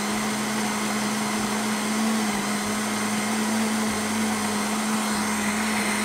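Countertop blender running at one steady speed, its motor giving a constant whine over a hiss as it blends a thin orange cake batter.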